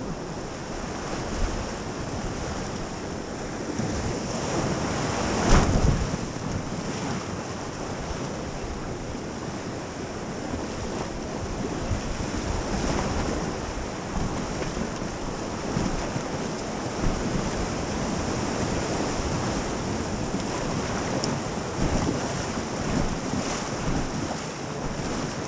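Rushing river water of a rapid around an inflatable raft, with wind buffeting the microphone; a brief louder rush about five and a half seconds in.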